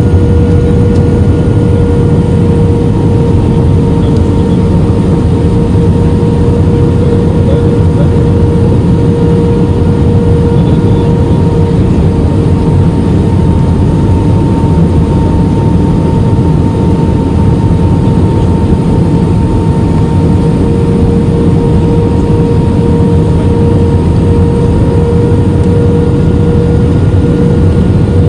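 Airbus A320 airliner heard from inside the passenger cabin on the landing approach: a steady loud rumble of engines and airflow with a constant hum tone over it.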